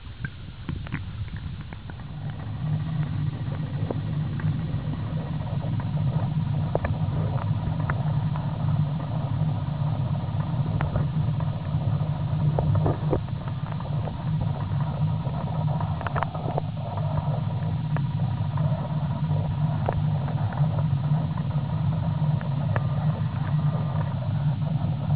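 Underwater river current rumbling low and steady against a submerged camera housing, growing louder over the first couple of seconds, with scattered small clicks and ticks.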